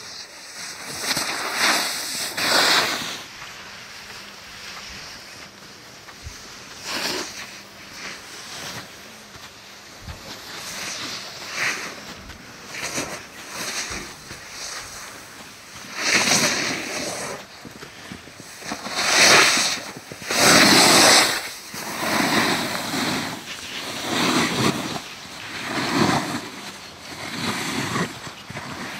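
Snowboard sliding and scraping over slushy early-summer snow, the rushing rising and falling in surges with each turn, loudest in a few scrapes a little past halfway through.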